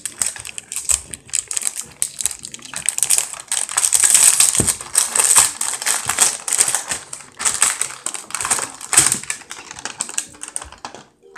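Small plastic acrylic paint bottles being handled and pulled from their cardboard box, with a rapid, irregular clicking and crinkling of plastic and cardboard that stops shortly before the end.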